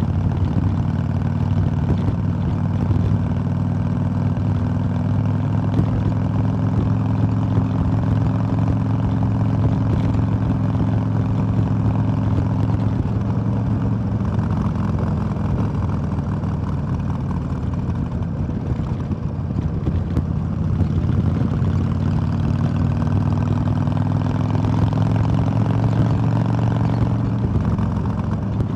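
A 2005 Harley-Davidson Sportster XL1200R's 1200 cc air-cooled V-twin running under way at a steady cruise. The engine eases off a little past halfway, then its pitch climbs slowly toward the end as it pulls again.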